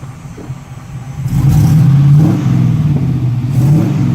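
V8 engine in a converted Chevy Astro van, revved twice from idle through a new free-flowing 3-inch exhaust. The note jumps up about a second in, rises, eases back, then rises again near the end.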